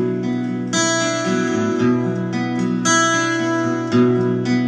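Acoustic guitar strumming chords, with a new chord struck about once a second.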